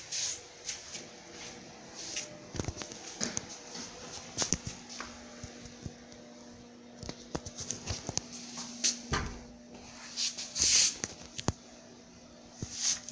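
Scattered knocks, taps and rustles from someone walking over a laminate floor and handling the recording phone, with a faint steady hum entering about halfway through.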